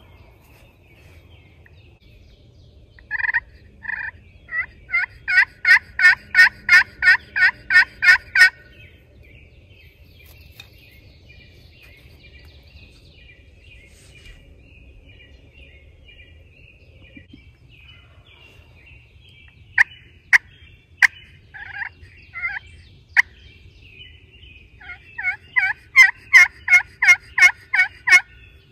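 Hunter's turkey call sounding hen yelps: two loud runs of about ten evenly spaced yelps each, the first near the start and the second near the end, with a few sharp clucks in between, used to call a gobbling tom in to the decoy.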